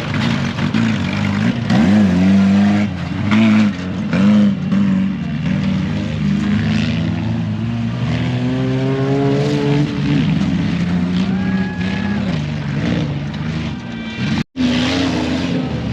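Off-road truck engines revving hard on a dirt course, the pitch climbing and falling again and again as throttle is blipped and released. The sound cuts out for an instant near the end, then resumes.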